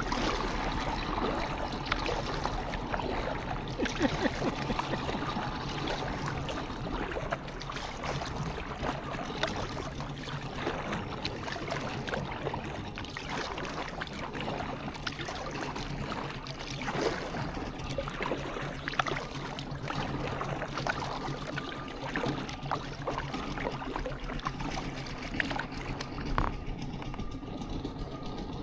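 Kayak paddling on a river: water trickling and splashing off the paddle blades with irregular small splashes, over a steady wash of moving water.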